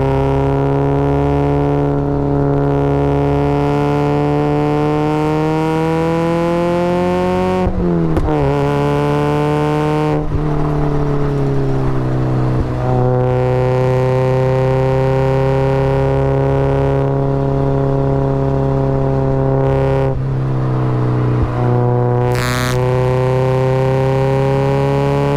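Supercharged Mazda Miata's four-cylinder engine running hard under load, its pitch climbing slowly for about seven seconds, then dropping suddenly and holding fairly steady with a few brief dips. A short burst of noise comes about twenty-two seconds in.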